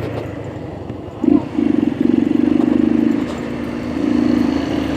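Small single-cylinder motorcycle engine pulling up a slippery dirt rise, its note swelling with the throttle about a second in, again for over a second around the middle, and once more near the end.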